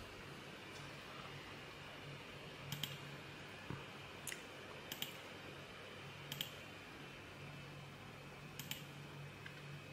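Faint computer mouse clicks, about six of them spaced a second or so apart, some as quick double clicks, over a low steady hum.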